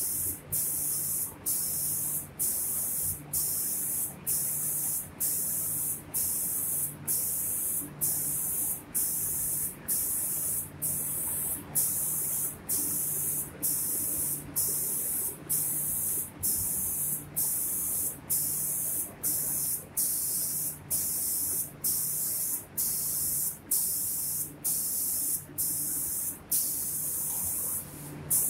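An automatic spray painting machine's spray gun hisses as it atomises paint. The hiss cuts off briefly about every three-quarters of a second, in an even rhythm, over a faint low hum.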